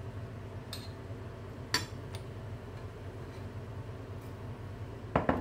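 A few sharp clinks of a metal spoon and glass sauce bottle against a ceramic mixing bowl as oyster sauce is spooned in, the loudest a quick cluster near the end, over a steady low hum.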